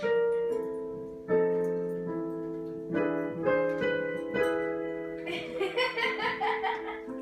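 Background piano music: slow chords struck every second or so, each note ringing on and fading.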